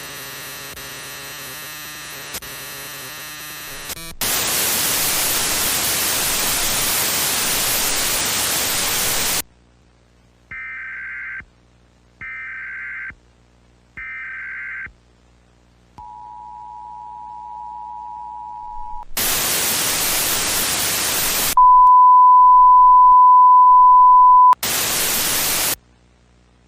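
A mock Emergency Alert System activation. Distorted buzzing is followed by several seconds of loud TV static, then three short bursts of warbling SAME data-header tones. After that comes the two-tone EAS attention signal held for about three seconds, then more static. A loud steady single tone near 1 kHz sounds for about three seconds and is cut off by a last short burst of static.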